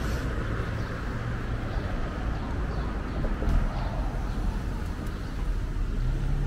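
Outdoor street ambience: a steady low rumble with faint bird chirps, and a low hum that builds near the end.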